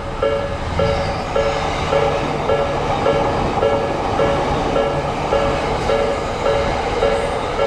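Japanese railroad-crossing alarm ringing its repeating two-note tone, about two rings a second, while a train runs by underneath it.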